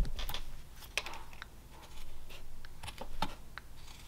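Sergey Belov whittling knife cutting into basswood, a series of short, crisp clicks at irregular intervals as small chips are pared away.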